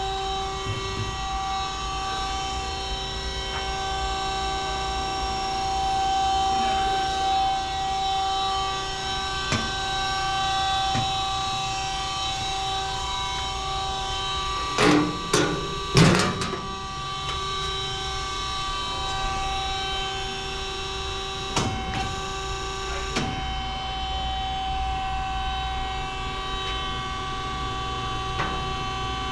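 Peerless VB-1820XL vertical band saw running steadily, a machine whine of several held tones from its three-phase motor and blade drive. A cluster of loud knocks comes about halfway through, and two lighter knocks follow a few seconds later.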